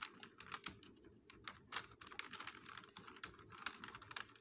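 Typing on a computer keyboard: a run of faint, uneven keystroke clicks.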